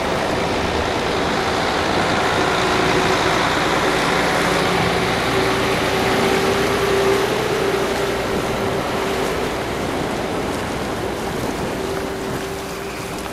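A Volvo articulated truck running at low speed as its two-trailer B-double rolls past close by. The diesel engine and tyres on asphalt make a steady noise with a constant whine running through it, loudest in the middle and easing off near the end as the rear trailer passes.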